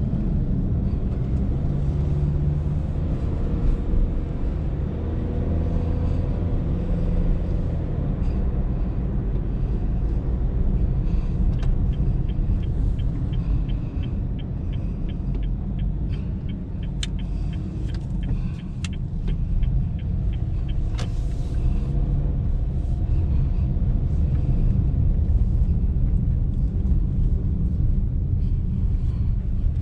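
Steady low rumble of road and engine noise from a 2019 Honda Brio with a CVT on the move. In the middle, a light, regular ticking, about three a second, runs for some eight seconds, with a few sharper clicks near its end.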